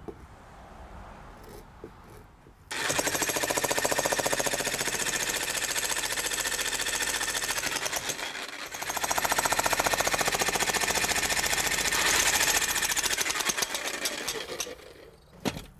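Electric jackhammer with a chisel bit breaking up driveway asphalt. Rapid hammering starts about three seconds in, breaks off briefly just past the middle, then runs again until near the end.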